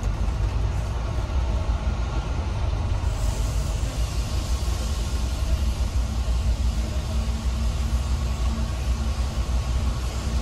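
Double-decker tour bus driving along a city street: a steady low engine and road rumble, with a brighter hiss joining about three seconds in.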